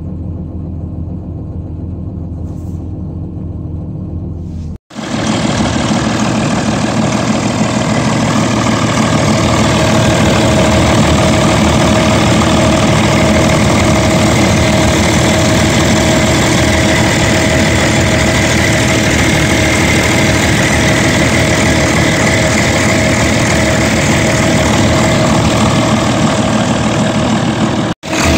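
Volvo TD61ACE six-cylinder turbo diesel of an Åkerman H7Mc excavator running steadily. It is duller and quieter at first. After a cut about five seconds in it is louder and brighter, heard close at the open engine bay, with a steady high tone over the engine noise.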